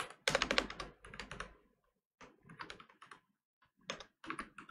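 Typing on a computer keyboard: quick runs of keystrokes in three short bursts with brief pauses between them.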